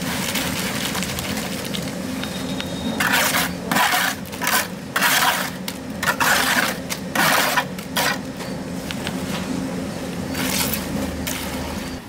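A run of about eight short, loud scraping or rubbing strokes on a hard surface, over a steady low hum.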